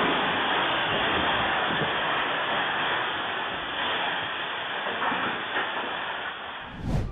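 Steady rushing noise of strong storm wind, with the muffled, narrow sound of a phone recording. It fades a little toward the end and is broken by a short thump near the end.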